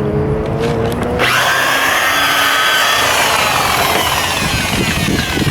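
Handheld electric power tool, a drill-type buffer, running: its whine starts about a second in and sinks slowly in pitch as it works.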